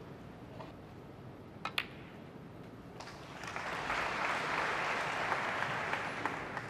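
Two sharp clicks of snooker balls being struck, close together, about two seconds in. From about halfway the audience applauds, fading near the end.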